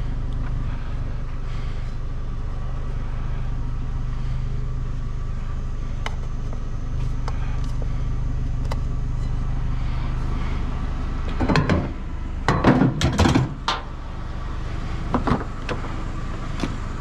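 An idling vehicle engine hums steadily while periodical cicadas drone in the background. About eleven seconds in comes a burst of clattering knocks, and a few single knocks follow near the end.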